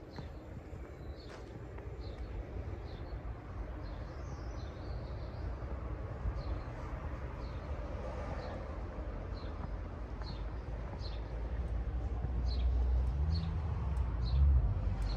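John Deere 8230 tractor's six-cylinder diesel engine running with a low, steady rumble that grows louder near the end. Short high bird chirps repeat over it, about one a second.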